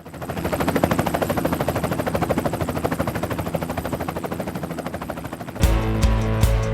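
Rapid, even chopping of helicopter rotor blades, about ten beats a second, fading in at the start. About five and a half seconds in it gives way to rock music with drums and guitar.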